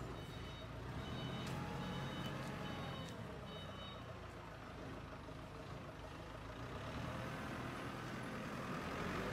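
A vehicle's reversing beeper sounding in regular short high beeps, about one a second, that stop about four seconds in, over a steady low rumble of background machinery.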